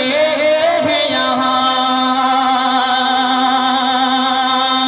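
A man singing a naat into a microphone. After a short sliding phrase he holds one long note with a slight waver from about a second in.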